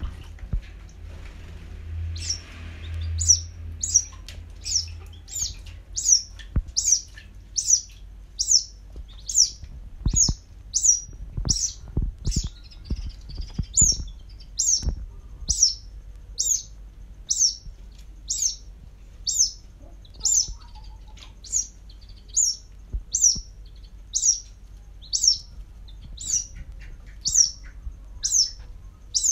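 Young white-breasted waterhen peeping: a steady string of short, high, downward-sliding peeps, close to two a second. A few low knocks come in about a third of the way through.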